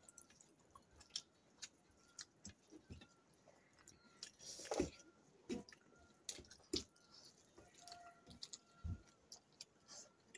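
Quiet eating sounds: chewing and lip smacks from people eating rice by hand, with many short soft clicks scattered through and one louder noise about four and a half seconds in.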